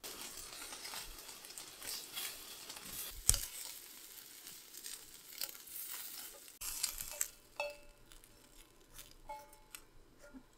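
Cubes of meat sizzling as they fry in a pan, stirred and turned with wooden chopsticks, with a sharp knock about three seconds in. After about six and a half seconds the sizzling stops, and there are light clinks and taps as pieces are set onto a ceramic plate.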